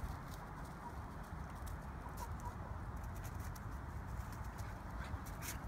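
A hen clucking softly a few times over a steady low rumble, with a couple of sharp taps near the end.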